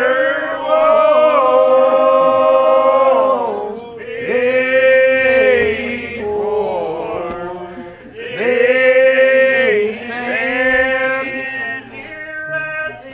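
Old Regular Baptist congregation singing a lined-out hymn unaccompanied, several voices in slow, drawn-out phrases with long held notes that slide between pitches and short breaks between phrases.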